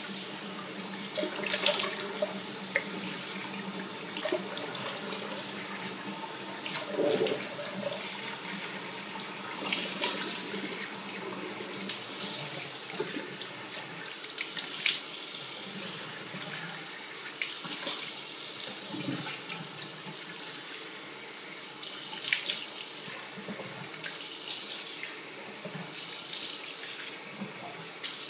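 Bathroom sink tap running steadily, with irregular splashes every few seconds as lather is rinsed off a face with the water.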